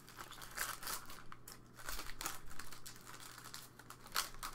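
Crinkling of a foil trading-card pack wrapper handled by gloved hands, in irregular crackles, with a faint steady low hum underneath.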